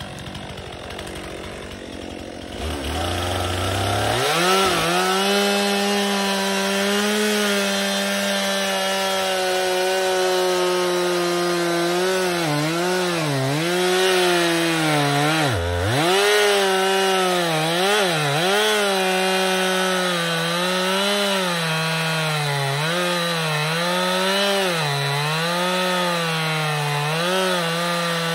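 Stihl two-stroke chainsaw idling, then throttled up to full revs about three seconds in and cutting into the base of a tree trunk. Its pitch dips and recovers again and again as the chain loads up in the wood, with one deep bog partway through.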